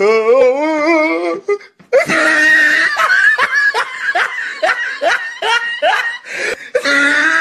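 A man laughing hard: a drawn-out wavering vocal sound at first, then after a brief break, hearty laughter in quick repeated bursts, about three a second.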